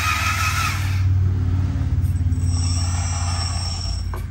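Lesu RC road roller's electric drive motor and gearbox whining as it drives on the left stick, the whine rising in pitch over the first second, then settling into a steady, higher whine from about halfway, over a low steady hum.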